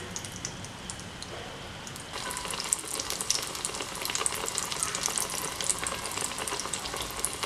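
Tapioca (kappa) vada deep-frying in hot oil in a frying pan: a steady sizzling crackle that grows livelier about two seconds in as the oil bubbles up hard around the freshly added vada.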